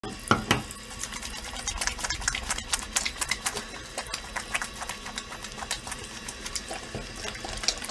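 Rapid, irregular clicking and ticking, with two louder knocks about half a second in.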